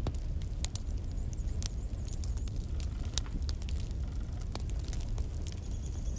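Logs burning in a fireplace: a steady low rumble of the flames under frequent irregular crackles and pops, with a faint high whistle early on and another near the end.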